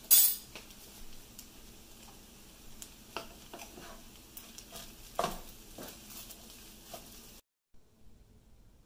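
Fried rice with ground beef and vegetables being stirred and tossed with a spatula in a hot pan: a steady sizzle with scattered scrapes and knocks. There is a sharp hiss at the start and a louder scrape about five seconds in. It cuts off about two-thirds of the way through.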